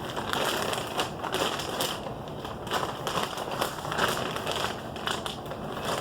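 Packaging of a 24-hour ration pack crinkling and rustling in irregular bursts as it is handled and checked for whether it is still sealed.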